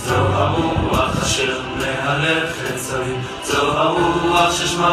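Background music: a song with several voices singing together in chorus over a steady bass.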